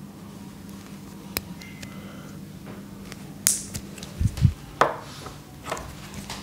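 Handling sounds of a straight shavette razor as the barber works its blade in his hands: a light click, a short sharp scrape about three and a half seconds in, then two dull knocks and a couple more clicks, over a steady low hum.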